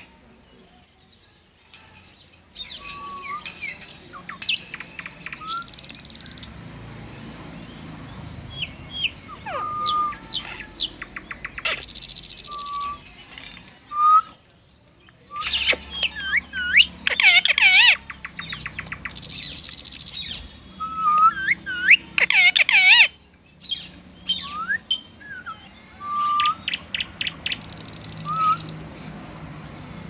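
Rose-ringed parakeet calling, beginning a couple of seconds in: short whistled notes, rising and falling chirps and quick clicking trills, broken by a few short harsh screechy bursts.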